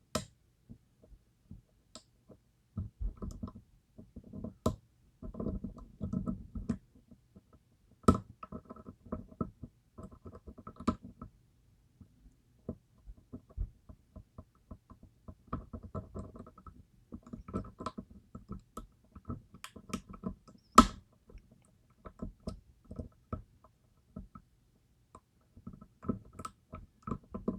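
Steel lock picks and a tension tool working the sharkfin pins of a DOM IX Twinstar lock cylinder: irregular small metallic clicks and scrapes as pins are lifted one at a time, with a couple of sharper clicks, about eight seconds in and again near twenty-one seconds.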